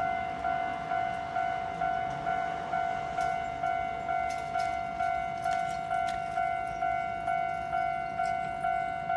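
Japanese railroad crossing warning bell sounding its 'kan-kan' alarm, a steady run of ringing strokes about two a second, each one fading before the next.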